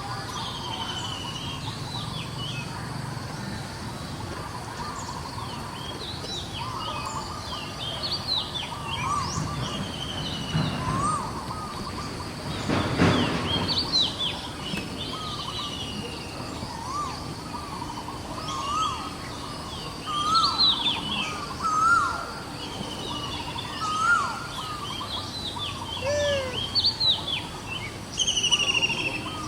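Many short, high chirping bird calls, repeated throughout over a steady background noise, with one brief louder noise about 13 seconds in.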